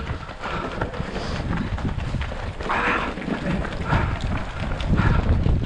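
Strong wind buffeting a runner's microphone, with the runner's rhythmic footfalls and breathing about once a second during a half marathon.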